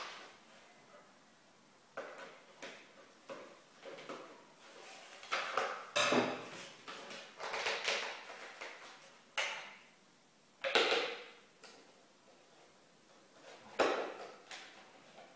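Irregular knocks, clicks and scrapes of hands handling a die-cast model car and its base and packaging, with short pauses between them.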